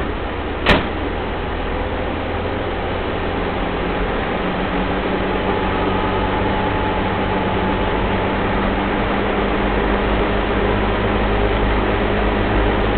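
1983 Mitsubishi Pajero's turbo-diesel engine running under way, heard from inside the cab with road noise, getting gradually louder. A single sharp click just under a second in.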